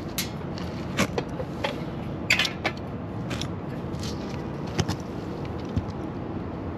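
Steady low running noise of an outdoor AC condenser unit, with scattered light clicks and taps of a hand on its sheet-metal top panel.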